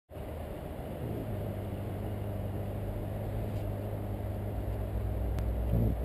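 A steady low engine hum, like a vehicle idling, with its pitch lifting briefly near the end.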